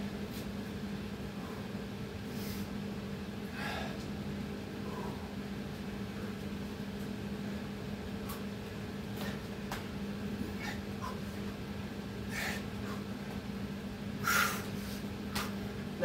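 A man breathing hard and panting, out of breath from burpees, with short sharp breaths every few seconds and the loudest one near the end. A steady low hum runs underneath.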